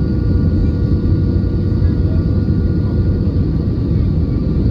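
Airbus A320 cabin noise on the landing approach, heard from a window seat: a steady, loud rumble of engines and rushing air, with faint steady engine tones above it.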